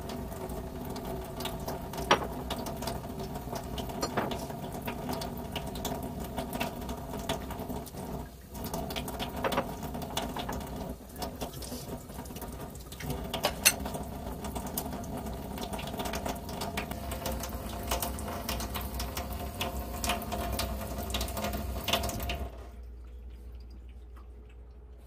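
A steady machine-like hum made of several fixed tones, with scattered clicks and rustles over it, that stops abruptly near the end.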